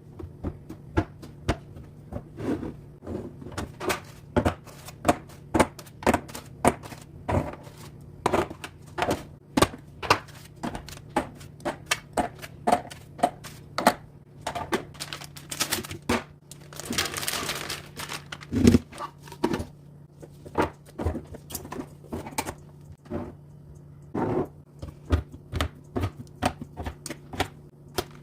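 Many sharp clicks and knocks of hard objects being handled and set down, irregular and a few a second, over a steady low hum. A brief rustling burst comes about seventeen seconds in.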